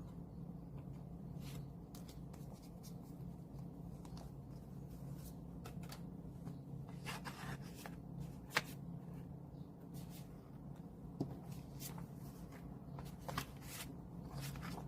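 Light rustling, sliding and scattered taps of paper and plastic album contents being handled, such as photocards and booklets, with one sharper tick about halfway through, over a steady low hum.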